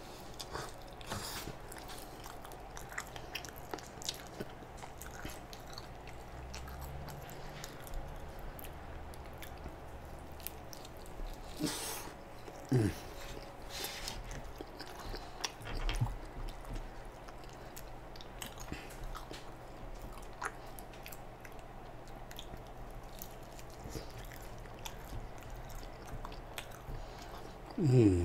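Close-up mouth sounds of a man chewing a slice of pizza: wet smacking with many small clicks. Twice a short falling low sound, the louder one near the end.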